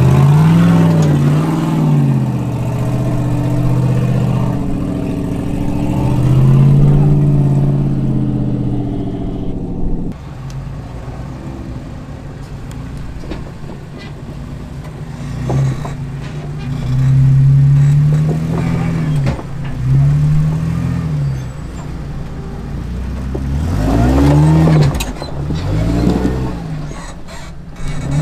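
Off-road Jeep engine revving in repeated short bursts while rock crawling, its pitch rising and falling with each blip of the throttle. The sound drops quieter suddenly about ten seconds in, then the revving swells return.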